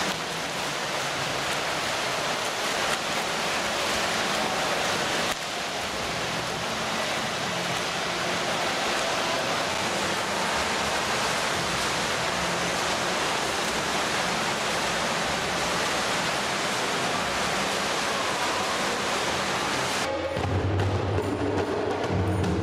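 Steady wash of splashing water from swimmers doing front crawl in an indoor swimming pool. It cuts off about twenty seconds in, when a group of hand drums starts playing a steady beat.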